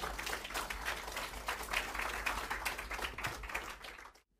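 Audience applauding, a dense patter of many hands clapping that stops abruptly near the end.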